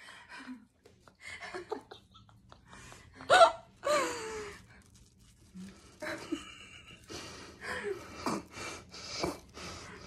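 Muffled vocal gasps, squeals and laughter from a mouth stuffed with French fries. The loudest is a sharp high squeal about three seconds in, followed by a cry that falls in pitch, then more short bursts near the end.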